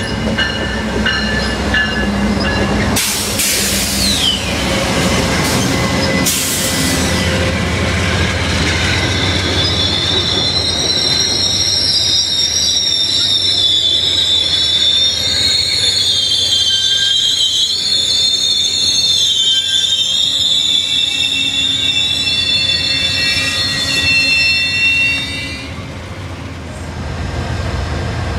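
Amtrak passenger train led by two GE P42 diesel locomotives pulling into a station. The locomotives rumble past, then the bi-level Superliner cars roll by with a high, wavering wheel-and-brake squeal as the train slows. The squeal stops near the end.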